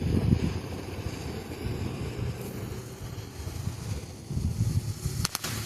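Wind buffeting the microphone, then near the end a firework starts crackling in a rapid run of sharp pops.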